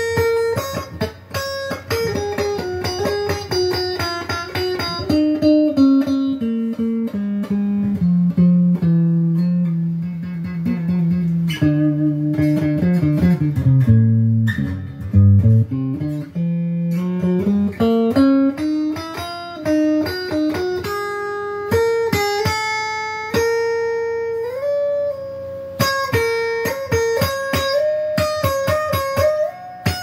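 Squier Debut Series Stratocaster electric guitar with stock single-coil pickups, played clean with some reverb through a Crate combo amp. A picked single-note line walks down to low notes around the middle, then climbs back up the neck.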